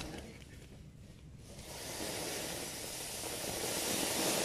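Ground firework fountain spraying sparks and flame: a steady hiss that swells about a second and a half in and grows louder toward the end.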